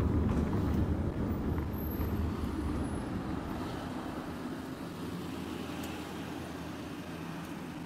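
Engine and road noise of a moving road vehicle heard from inside the cabin: a steady low rumble that slowly grows quieter.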